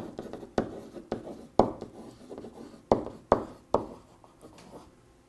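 Marker writing on a whiteboard: a run of about seven short, scratchy strokes, ending about four seconds in.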